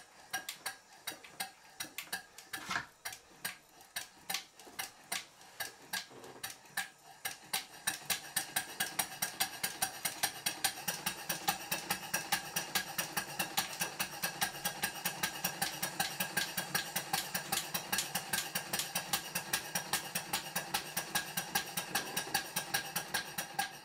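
Small model showman's steam engine running on compressed air, with a rapid, even clicking from the ratchet of its mechanical lubricator. The clicking is sparse at first, then about eight seconds in it quickens into a fast steady rhythm and grows louder.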